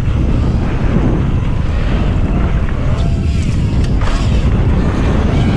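Heavy wind buffeting on a chasing FPV racing drone's microphone, with the whine of its motors faintly gliding up and down in pitch as it follows a rider.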